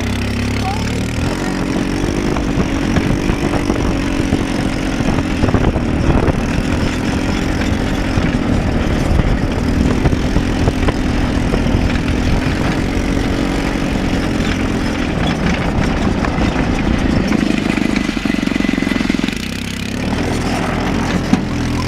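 Off-road go-kart's small engine running under way, its pitch rising and falling as the throttle is worked, easing off briefly near the end.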